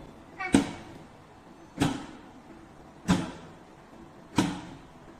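3-in-1 locker vending machine delivering an order of several products: four sharp mechanical clunks, one about every second and a quarter, each with a brief rattle just before it.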